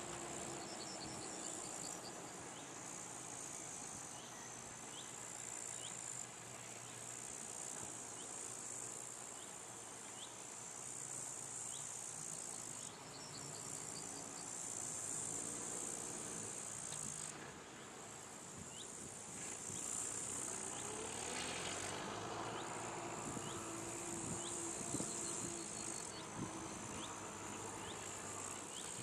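Insects in the hay meadow chirping in high-pitched stretches of a few seconds that start and stop, over the faint hum of a tractor engine running at a distance.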